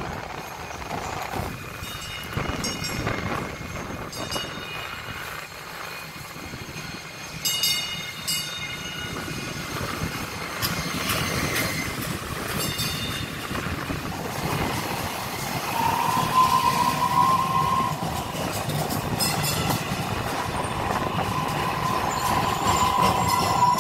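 DART light rail train, a Kinki Sharyo light rail vehicle, rolling in along the platform as it slows to stop. There is continuous running noise with scattered clicks, and about two-thirds of the way through a high, steady wheel squeal sets in and holds.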